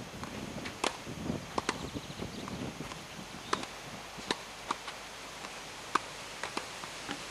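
Tennis balls struck by a racket and bouncing on a clay court: a string of sharp pops at uneven intervals, the loudest about six seconds in.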